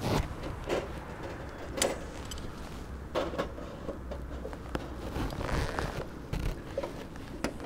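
Scattered light metallic clinks, taps and scrapes, about nine in all, as a spatula works against a stainless-steel Bemco backpacking oven and its pizza grates, over a low steady rumble.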